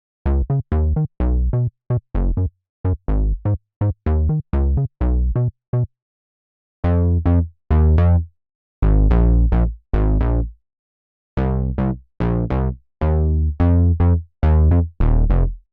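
TAL J-8 software synthesizer, an emulation of the Roland Jupiter-8, playing a bass preset: deep analog-style bass notes in short phrases, each note opening bright and quickly darkening as the filter closes. Clipped staccato notes alternate with a few longer held ones, with brief pauses between phrases.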